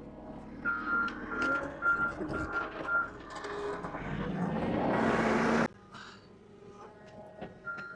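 Reversing alarm on a farm machine beeping about twice a second, five beeps in a row, with the machine's engine running underneath. Past the middle a rush of noise builds and cuts off suddenly, and the beeping starts again at the very end.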